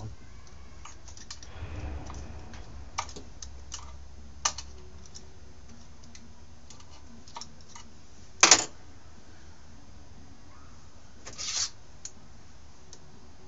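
Scattered light clicks and taps of small metal parts and tools as nuts are worked onto the carburetor mounting studs of a Stihl S10 chainsaw. One sharper, louder click comes past the middle, and a brief scrape follows near the end.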